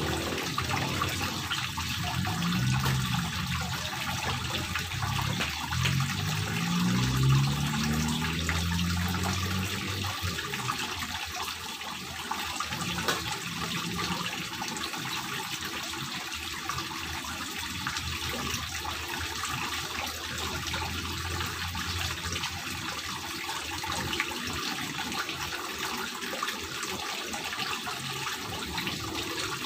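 Water running steadily down a grooved stone water wall and splashing into a small pond. A low droning hum rises in pitch a few times during the first ten seconds.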